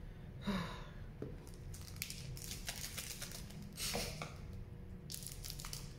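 Trading cards being handled, with light rustling and small clicks as the stack is fingered through. About half a second in there is a short breathy sound.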